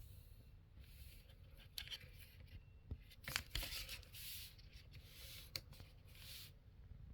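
Handling noise from a plastic action figure: a few sharp clicks and knocks mixed with short bursts of scraping and rustling.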